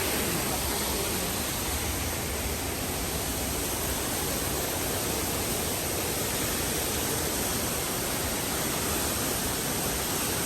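Waterfall rushing: a steady, even noise of falling water with no change in level.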